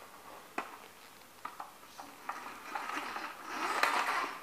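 Heavy lug-soled leather boots pressing on a toy model Corvette on a board: a few sharp clicks and knocks, then a rising crackling and scraping as the boot bears down on the car, loudest near the end.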